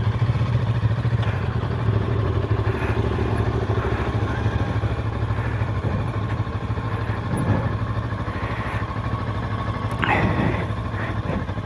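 Macbor Montana XR5 510 motorcycle engine running steadily at low revs, with a brief knock about ten seconds in.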